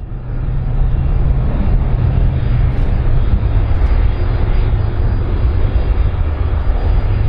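Aircraft engine noise: a loud, steady, deep rumble that fades in over the first second.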